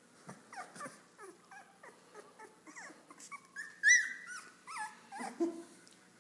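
Three-week-old Airedale terrier puppies squeaking and whimpering: a run of short high-pitched yips that slide in pitch, with one loud squeal about four seconds in.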